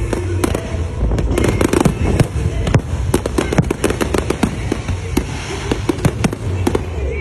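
Aerial fireworks bursting overhead, a dense run of sharp bangs and crackles, several a second.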